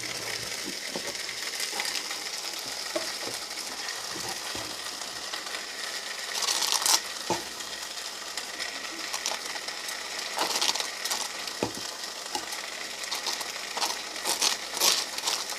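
Thin-sliced bologna sizzling in a dry pan, frying in its own fat with no oil or butter: a steady hiss, with a few short clicks and scrapes here and there.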